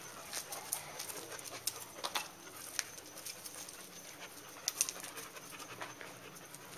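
Two dogs, a Dalmatian and a Boxer, panting, with scattered light clicks.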